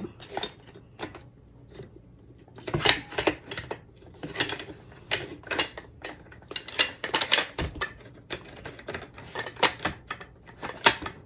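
Irregular metallic clicks and clacks of GForce Arms 12-gauge pump shotgun parts being worked by hand, as a part is pushed and fiddled to slide it into place without it going in.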